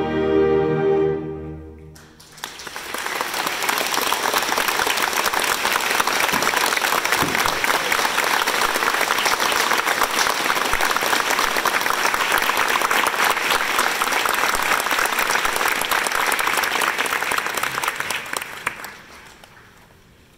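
A concert band's held final chord cuts off about two seconds in, then an audience applauds steadily, the clapping fading away near the end.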